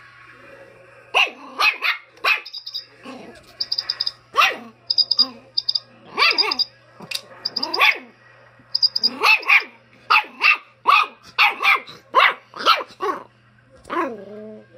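Schipperke puppy barking over and over in short, sharp barks, with high chirping beeps from a battery-powered toy chicken between the barks in the first half.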